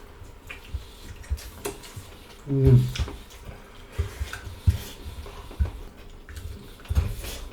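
Eating at the table: cutlery clicking and scraping on plates in scattered short knocks, with a short falling hum of a voice about two and a half seconds in.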